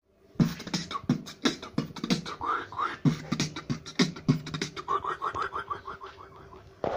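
Beatbox-style rhythm: a quick beat of short thumps with rapid rising chirps between them, fading toward the end.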